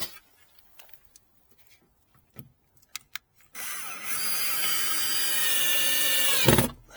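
Power drill driving a screw into a gate hinge. It runs with a steady whine for about three seconds, then winds down and stops with a low thud. A few small clicks of handling come before it.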